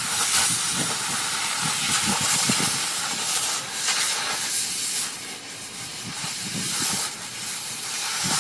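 Gas cutting torch hissing steadily as its jet cuts into a steel rail, with crackling from the molten metal spraying off. The hiss eases a little about halfway through.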